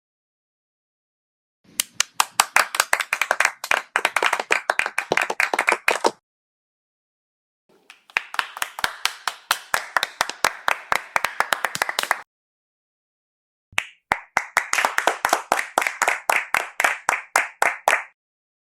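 Audience clapping in three separate bursts of about four and a half seconds each, with dead silence between them; the individual hand claps stand out sharply rather than blending into a wash.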